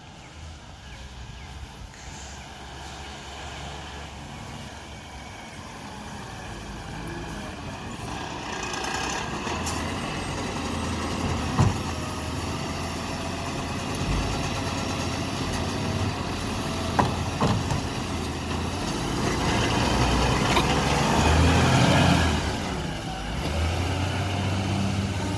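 Volvo FE side-loader garbage truck pulling up, its diesel engine growing steadily louder. Its automated arm then grabs, lifts and tips a wheelie bin, with sharp knocks and the engine and hydraulics loudest about twenty seconds in.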